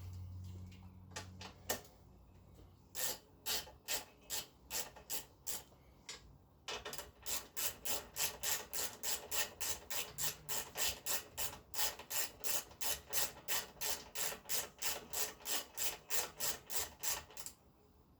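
A hand tool worked in quick, repeated rasping strokes on a moped part. The strokes come at about two a second at first, then settle into a faster, steady run of about three a second until near the end.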